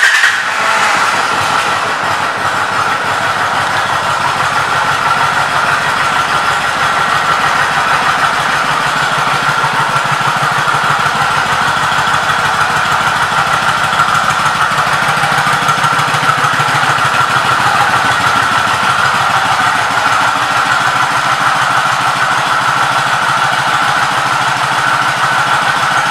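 1998 Kawasaki Vulcan 1500's V-twin engine idling steadily just after being started, with an even run of firing pulses.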